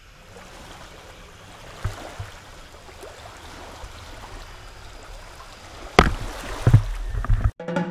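Water trickling and lapping in an alligator pool. About six seconds in, an alligator seizes the camera in its jaws: a sharp knock, then heavy muffled thumps and splashing as it mouths it.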